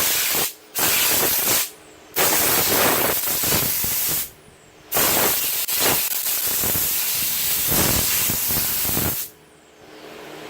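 Steel knife blade being ground on a running North Ridge Tool belt grinder: a harsh hiss in four passes, two short ones and then two long ones, broken by brief gaps where the blade is lifted off the belt. The grinder's motor hum carries on through the gaps and after the last pass.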